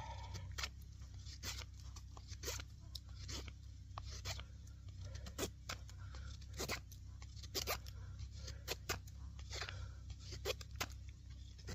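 A 420HC steel bushcraft knife shaving bark off a wooden stick in short scraping strokes, about a dozen of them at roughly one a second, a little unevenly spaced.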